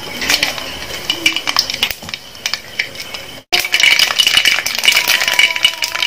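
Mustard seeds spluttering and popping in hot sesame oil in a pan: a dense, rapid crackle. It breaks off for a moment about halfway through and comes back louder.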